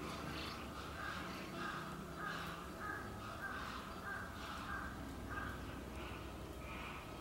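Asian small-clawed otters making short, high calls over and over, about twice a second.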